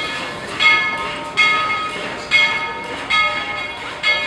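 Steam locomotive's bell ringing steadily, one ringing stroke a little under every second, five in all, as the passenger train pulls slowly away.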